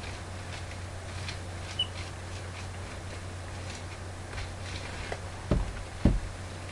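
Faint scratchy ticks of a paint applicator on an extension pole worked against a rough stucco wall, over a steady low hum. Near the end there are two dull thumps about half a second apart.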